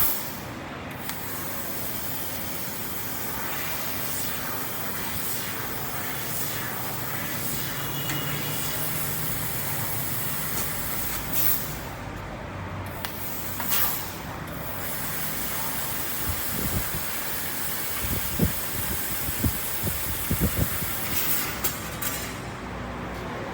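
Fiber laser cutting machine running a cut, with a steady hiss of assist gas blowing from the cutting head. The hiss breaks off briefly a few times, as between cuts. Scattered knocks come in the second half.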